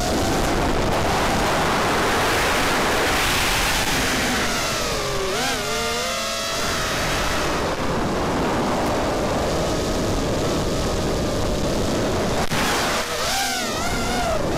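Racing quadcopter's Cobra 2204 2300 kV brushless motors spinning DAL 4x4.5 three-blade props: a steady rush of prop wash with a motor whine that dips and rises in pitch with the throttle about five seconds in, and wavers again near the end.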